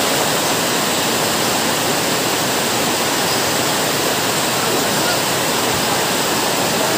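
A large crowd of spectators shouting at once, a dense, steady wall of voices with no single voice standing out.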